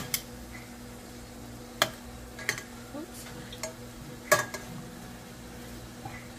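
Metal tongs clicking and scraping against a stainless steel pan as shrimp are flipped, over the steady sizzle of the shrimp frying. The clicks come every half second to a second, and the loudest is about four seconds in.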